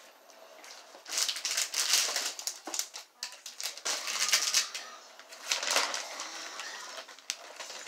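Crinkling and rustling of a costume and its packaging being handled, in several bursts with a few sharp clicks.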